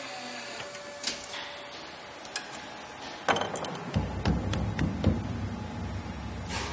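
Sharp metallic clicks and taps from work on grand-piano strings at the tuning-pin end. About four seconds in, a low, steady ringing hum starts as a hand sweeps across the copper-wound bass strings and sets them sounding.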